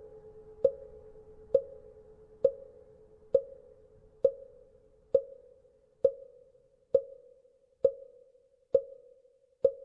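Buddhist wooden fish (mõ) struck at a steady pace, about one knock a second, each a short knock with a brief ring. A temple bell's lingering ring fades away under the first few knocks.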